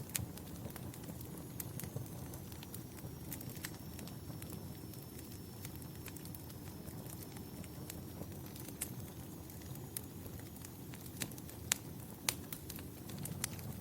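Wood fire in a fireplace crackling, with irregular sharp pops and snaps over a steady low rumble of burning; a few louder pops come near the end, and a faint high whistle runs through most of it.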